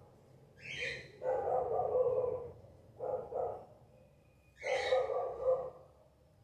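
A series of short animal calls, four or five of them with pauses between, heard in the background.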